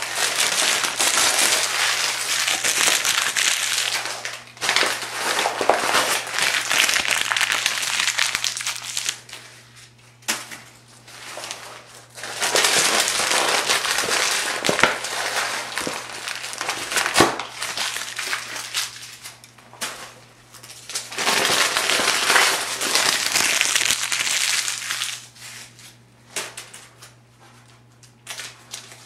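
Thin phone-book pages being crumpled by hand: dense crinkling and crackling in four long spells, with short pauses between them.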